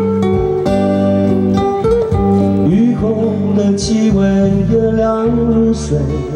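Live band of acoustic guitars and electric guitar playing the instrumental interlude of a song, chords and picked melody notes running on without a break.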